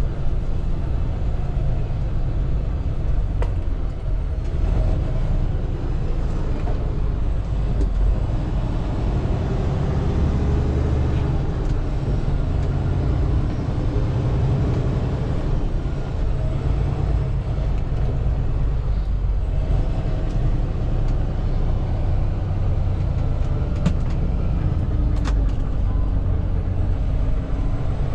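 Semi-truck's diesel engine running with a steady low rumble, with a few faint clicks.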